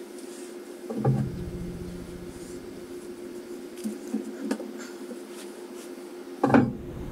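Handling of a bottle jack under a wooden support post: a sharp knock about a second in, a few light clicks around the middle as a hand works the jack, and a louder knock near the end.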